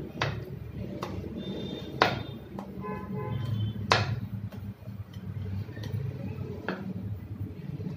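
Wooden rolling pin rolling and knocking on a steel rolling board, with a handful of sharp clicks, the loudest about two and four seconds in, and a brief metallic ringing around three seconds. A steady low hum runs underneath.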